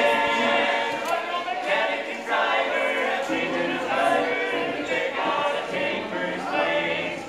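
Barbershop quartet of men singing a cappella in close harmony, in phrases of held chords.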